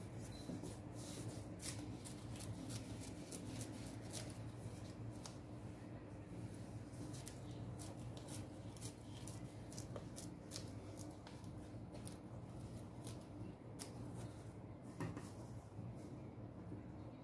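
Scissors snipping and stiff fabric rustling as it is handled and cut: a string of short, crisp, irregular snips and rustles over a steady low hum.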